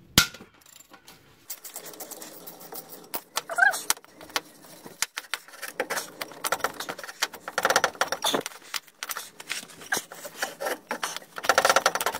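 Ratchet wrench on a 15 mm socket clicking in quick runs as a bolt holding the exhaust flexi pipe is undone, with a sharp metallic click just after the start.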